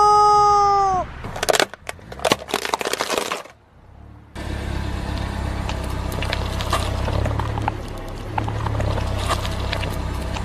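A rubber chicken toy's long squeal, one steady held tone, cuts off about a second in. A burst of crackling and crunching follows. After a brief pause comes the low rumble of a car rolling slowly, with light crackling from the tyre on wet pavement.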